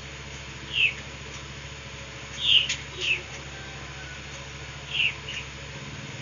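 Pen writing on paper: a handful of short, squeaky strokes over a steady low hum.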